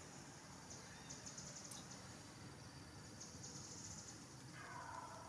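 Faint outdoor ambience with insects buzzing in short, high, pulsing trills a few times. Near the end a drawn-out animal call begins, falling in pitch.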